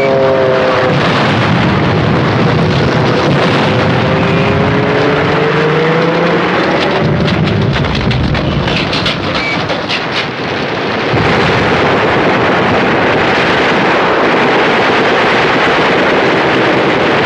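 Battle sound effects: a dense, continuous din of gunfire and explosions. An aircraft engine passes and falls in pitch right at the start, and the din dips briefly about ten seconds in.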